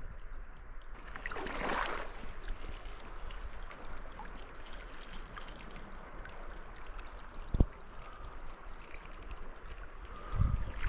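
Shallow, silty river water flowing steadily. The sound swells louder for a moment about a second and a half in, and there is a single sharp click past the middle.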